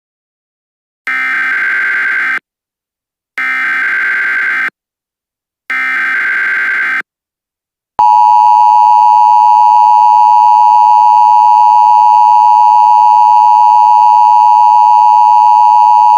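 Emergency Alert System SAME header: three short bursts of screeching digital data tones about a second apart. About halfway through, a loud, steady attention tone begins.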